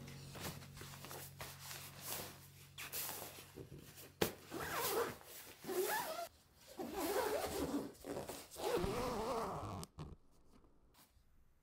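Zipper on a fabric bedding storage box being pulled closed in several short rasping runs, after the fabric of the lid rustles as it is pressed down over a duvet.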